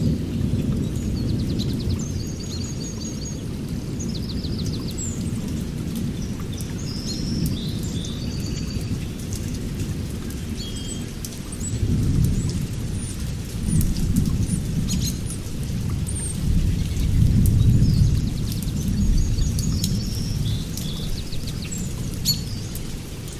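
Rain soundscape: a steady low rumble of rolling thunder that swells several times in the second half, scattered drops ticking, and birds chirping in short trills throughout.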